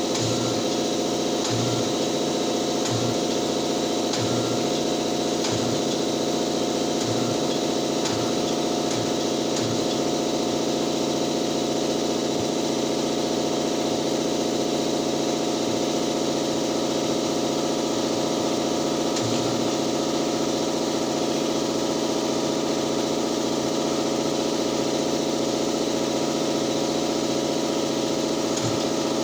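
Steady hum and hiss from the air supply of a tire-mounting set-up, which is leaking air.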